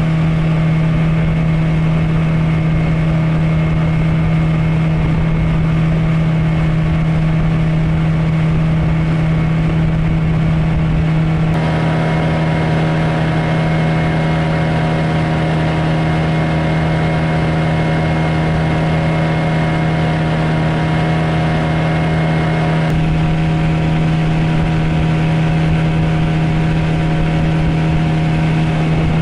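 Suzuki 9.9 outboard motor running at a steady cruising speed, driving a Kazanka-1 aluminium boat along; a steady engine drone with a strong low hum. The mix of tones changes abruptly twice, about a third and three quarters of the way in.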